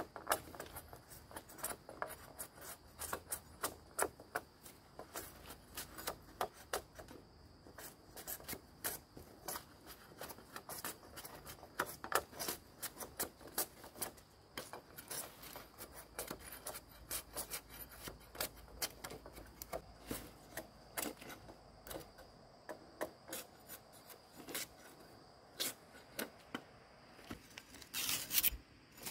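Irregular sharp clicks, snaps and scrapes of something being handled or cut by hand, over a faint steady high tone, with a louder scrape near the end.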